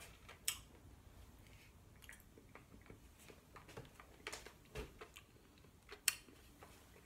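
Faint mouth sounds of a hard candy being sucked and moved around the mouth: scattered soft clicks and wet smacks, the loudest about half a second in and about six seconds in.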